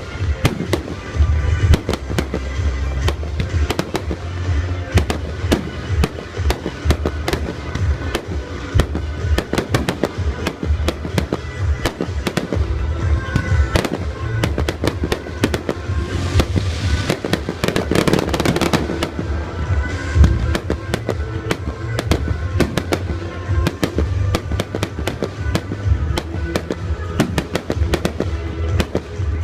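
Aerial fireworks bursting in quick, dense succession over music with a heavy bass line. The bangs thicken into a burst of fizzing and crackling a little past the middle.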